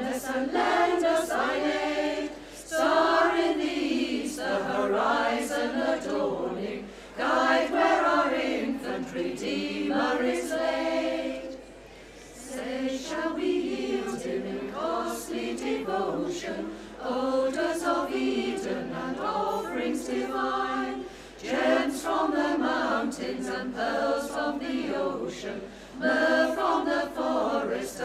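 Women's choir singing a cappella, the sung lines broken by short breaks between phrases, the longest about twelve seconds in.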